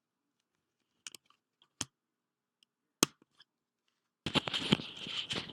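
A few sharp clicks as a lavalier lapel mic's plug is pushed into the computer, then near the end a loud burst of rustling and scraping: handling noise picked up up close by the newly connected lapel mic.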